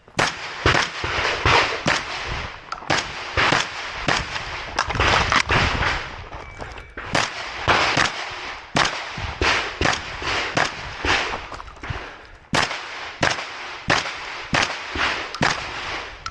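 Shotgun fired in a long, irregular string of shots, often less than a second apart, with a few short breaks between strings.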